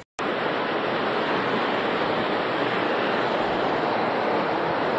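Fast-flowing floodwater rushing in a steady, loud rush, starting abruptly just after a brief gap.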